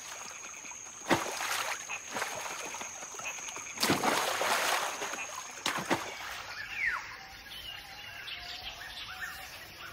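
Water splashing as macaques leap into a shallow river, the biggest splash about four seconds in, with smaller ones near one and six seconds. A steady high insect tone runs under the first six seconds, and a few bird chirps come near seven seconds.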